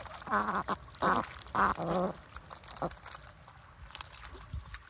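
Domestic ducks quacking: four short, wavering calls in the first two seconds and one more just before three seconds in, over scattered clicks of bills dabbling in wet mud and shallow water, which go on alone after the calls stop.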